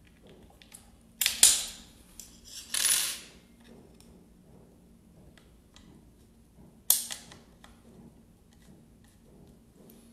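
Hard plastic knocks and scraping from the motor end cap of a Bosch GKS 140 circular saw being pushed and worked by hand onto the motor housing over the spring-loaded carbon brushes. There are clacks and a short scrape about a second in, another scrape near three seconds, and one sharp click near seven seconds.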